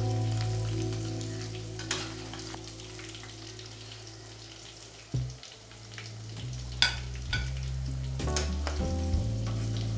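Squid rings deep-frying in hot oil, a steady sizzle, with a few sharp clinks of a steel slotted spatula against the pan as the fried pieces are lifted out. Held low background-music notes sound underneath.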